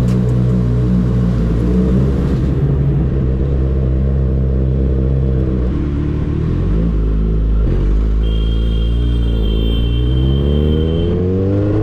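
Kawasaki Ninja motorcycle engine running at low revs while the bike rolls slowly. Near the end it accelerates and the engine note rises steadily in pitch.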